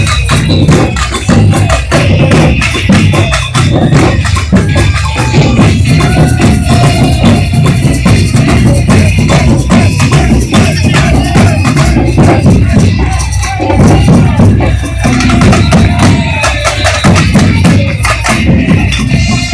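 Carnival batucada drum section playing loudly: a dense, driving rhythm of bass drums under rattling high percussion, keeping up without a break.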